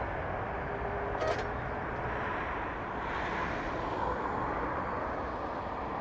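Four-engined Airbus A380 jet engines running at high thrust on the takeoff roll: a steady, loud jet rumble and roar that swells slightly about three seconds in.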